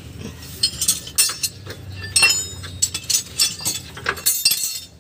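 Metal hand tools (sockets, wrenches and a ratchet) clinking against each other and the ground as they are rummaged through and picked up: a quick, uneven series of sharp metallic clinks.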